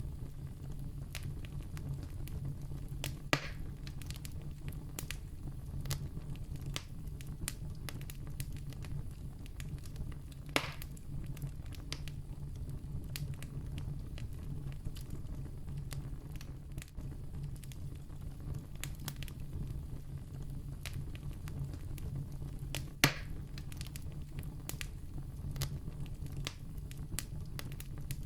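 Wood campfire burning steadily with a low rumble of flame and many small crackles, and three louder, sharper pops spread through it.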